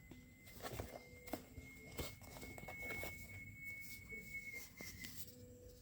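Faint handling of smartwatch packaging: rustling with scattered light clicks and taps. A thin steady high whine runs underneath and fades out near the end.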